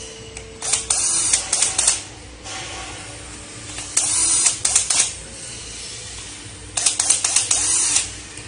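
Cordless drill driving three screws into a controller's heat sink, in three runs of about a second each with rapid clicking.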